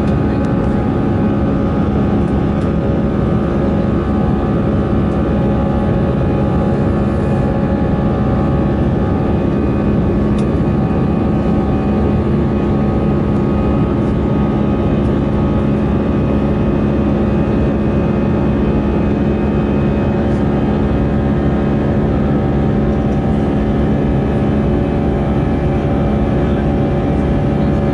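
Cabin noise of an Airbus A320-family twin-jet airliner in the climb after takeoff: the engines and airflow, heard from inside the cabin, make a constant loud drone with several steady hum tones in it.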